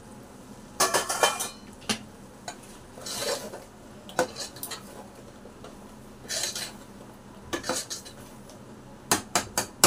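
Metal spoon scraping and clinking against the sides of a pressure cooker pot as thick curry masala is stirred while frying on high heat. The clinks come in irregular bunches, loudest about a second in and again near the end.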